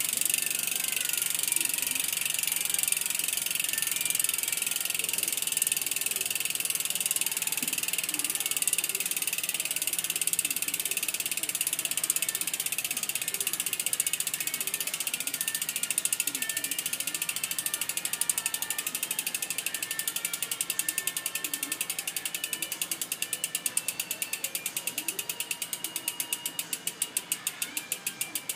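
Amoeba 868 mountain-bike rear hub freewheeling as the wheel coasts, its pawls clicking over the ratchet so fast they blur into a buzz. In the last third the wheel slows and the clicks spread out into separate ticks that get quieter.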